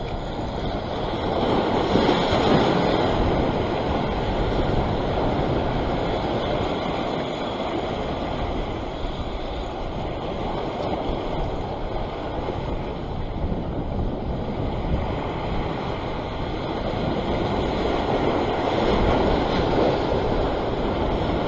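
Sea waves surging and washing over a rock ledge, with wind buffeting the microphone. The wash swells louder about two seconds in and again near the end.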